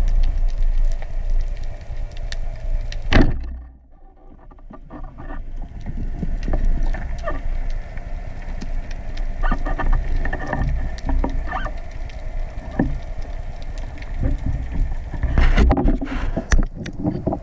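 Underwater audio through a camera housing on a band-powered speargun: low rumbling water movement and scattered crackling clicks, with one sharp, loud snap about three seconds in as the speargun is fired.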